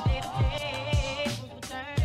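Background music with a steady beat: a deep kick drum about twice a second under a bending, voice-like melody.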